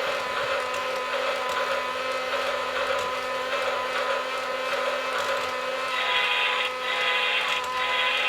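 Battery-powered Thomas Bump n Go bubble train toy running: its small electric motor whirs steadily, with steady tones from the toy running through it. The whir gets brighter about six seconds in.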